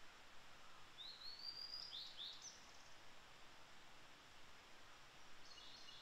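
Male blue-and-white flycatcher singing faintly: a clear, high whistled phrase that rises about a second in and ends in a few quick sharp notes, then a second short, buzzier phrase near the end.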